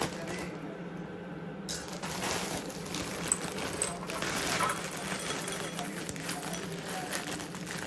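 Kitchen cooking sounds: metal cookware clinking and knocking, with a steady hiss setting in about two seconds in.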